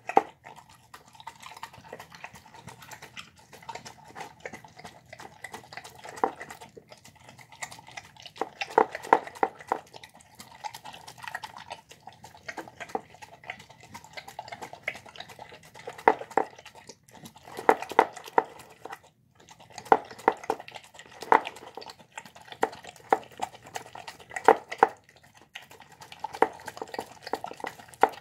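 Dog eating soft rice and egg from a bowl: wet chewing and smacking, with clusters of sharp clicks and knocks against the bowl every few seconds.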